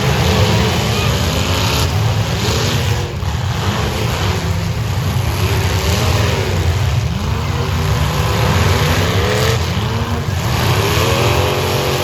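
Demolition derby car engines revving hard, several at once, their pitch rising and falling again and again over a steady low rumble.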